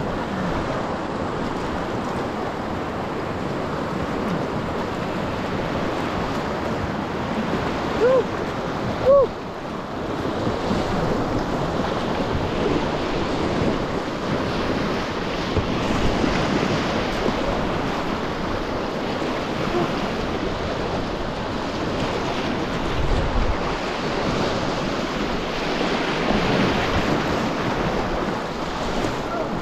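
Rushing river water, a steady noise of current running through a rapid, with some wind on the microphone. Two brief chirping tones stand out about eight and nine seconds in.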